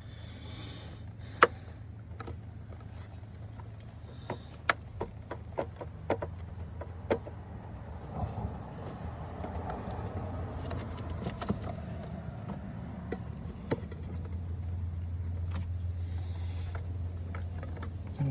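Scattered sharp clicks and knocks of hands and tools working the plastic ECU cover and its clips in a car's engine bay, over a steady low hum that grows louder near the end.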